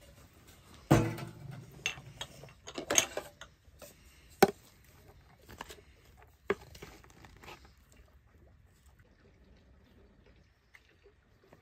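Irregular knocks and clatters of hard objects, sharp single strikes roughly a second apart, the loudest about a second in and a quick flurry near three seconds, dying away after about eight seconds.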